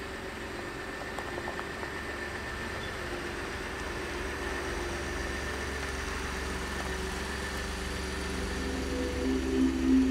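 Ford F-150 pickup truck running at low speed with a steady engine hum as it pulls a jon boat on its trailer. Music comes in near the end.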